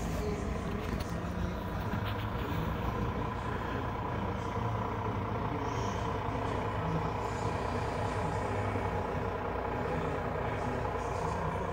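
A vehicle engine running steadily, a low continuous rumble with no change in speed.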